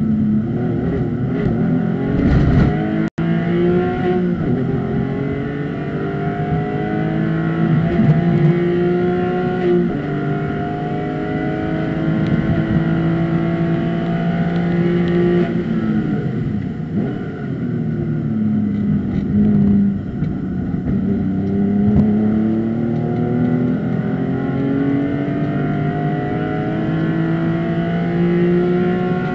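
A Porsche race car's engine, heard from inside the cockpit under hard acceleration. Its pitch climbs, drops sharply at each upshift and climbs again, falls under braking and downshifts about halfway through, then rises once more.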